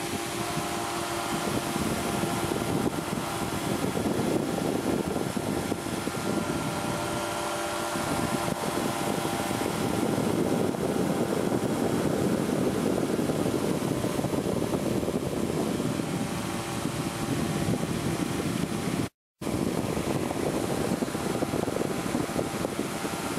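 Powered parachute's engine and propeller running steadily in flight, a continuous drone mixed with rushing air noise. The sound cuts out completely for a moment near the end.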